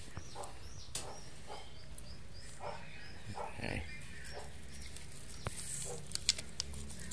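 A rapid run of faint high chirps, about three a second, for the first few seconds. Later, a few sharp clicks as land snails are picked by hand out of leaf litter and their shells knock together.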